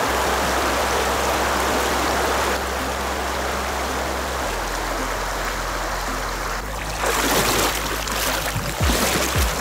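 Shallow river water rushing steadily over rocks in a riffle. Low bass notes sit under it, and near the end a music beat of about two thumps a second comes in.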